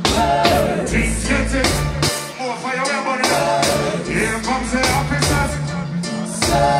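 Live reggae band playing loud through the stage sound system, with a male singer on microphone over a repeating bass line and drum kit.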